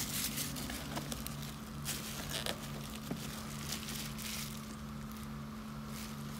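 Bubble wrap and plastic packaging crinkling and rustling in handling, in irregular short bursts, over a low steady hum.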